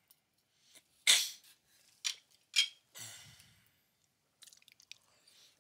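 Close-up eating noises picked up by a headset microphone: three short, sharp mouth sounds about one, two and two and a half seconds in, then softer chewing and a run of small clicks near the end.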